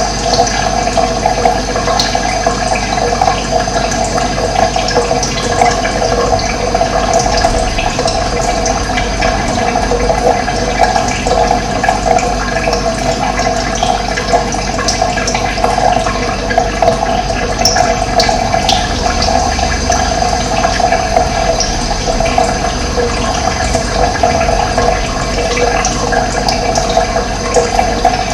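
Running water, a steady rushing flow with no pauses.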